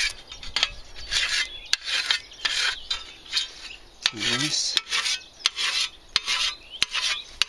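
Sharpening stone rasping along the edge of a scythe ditch blade in short repeated strokes, about two a second, with sharp clicks between strokes.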